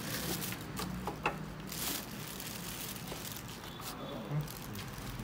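A paper calendar sheet being slid and tapped into the slot of a desktop hole-punch machine: light rustling of paper and plastic wrap, with a sharp click about a second in and a soft knock near the end.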